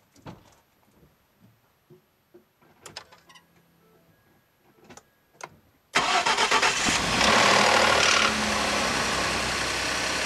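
A few faint clicks, then about six seconds in a 2011 Ford F-150's 3.5-litre twin-turbo EcoBoost V6 starts from cold: loud and rattling for about two seconds, then settling to a steadier, quieter idle. The rattle is the cold-start timing chain noise that Ford's TSB 14-0194 timing chain repair has not cured.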